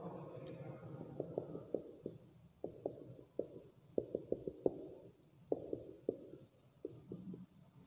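Felt-tip marker drawing short dashes on a whiteboard: a run of quick, irregular ticks as the tip strikes and lifts, several a second.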